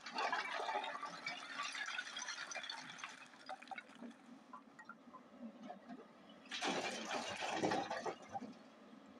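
Hyundai 210 excavator bucket digging into a pile of broken stone, rocks scraping and clattering for the first few seconds. About six and a half seconds in, a bucketload of stone pours into a dump truck's bed for over a second, with the excavator's diesel engine running low underneath.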